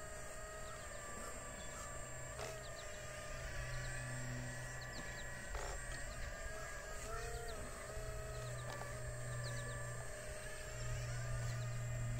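Radio-controlled model excavator (a Herrlieb 946 scale replica) working its arm and bucket: a steady motor whine with a low hum underneath, its pitch briefly dipping and rising several times as the boom and bucket move.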